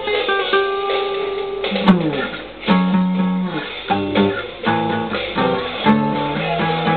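A guitar solo: picked single notes, then from about two seconds in, fuller chords and notes with downward slides.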